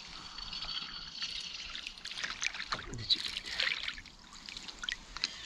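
Water lapping and splashing in small irregular bursts at the side of an inflatable kayak, with a spinning reel being wound in.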